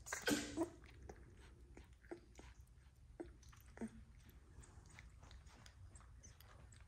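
Newborn XL American Bully puppy suckling on a feeding bottle's nipple, making scattered short wet smacks and clicks. A brief rustle of handling, the loudest sound, comes in the first half second.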